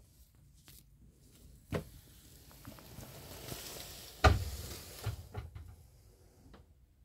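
A few knocks and bumps with rustling, as someone climbs and shifts onto a cushioned cabin berth. The loudest thump comes about four seconds in, a smaller knock comes just under two seconds in, and lighter knocks follow near the end.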